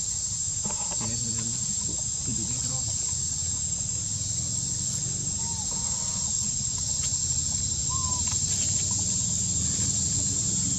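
Insects droning steadily at one high pitch, with a few short faint chirps over it.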